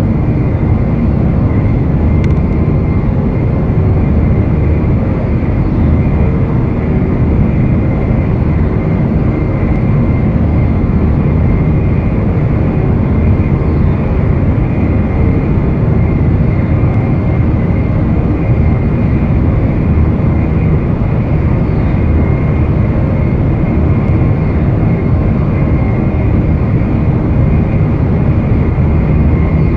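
Steady, loud, low rumbling roar of a moving vehicle, unbroken throughout, with a faint steady high tone above it.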